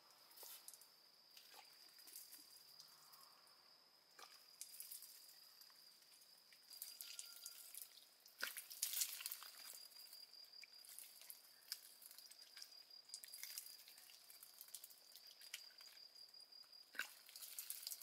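Faint, steady high-pitched insect trill, with scattered light clicks and ticks throughout; a louder cluster comes about eight to nine seconds in, and another near the end.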